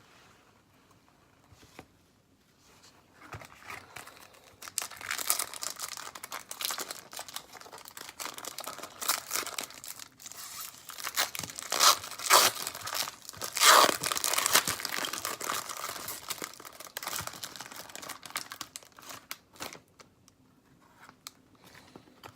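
A trading card pack's wrapper being torn open and crinkled by hand. It starts about three seconds in, crackles on and off with the loudest tears about halfway through, and dies away near the end.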